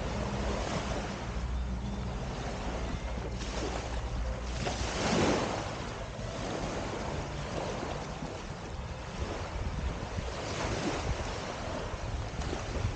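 Small waves lapping and washing up on a sandy shore, with wind buffeting the microphone; one wave washes in louder about five seconds in.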